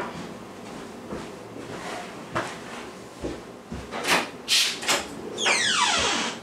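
Clicks, knocks and sliding or rustling handling sounds, like a drawer or cupboard being worked, with two dull thumps about three and a half seconds in and a falling swish near the end.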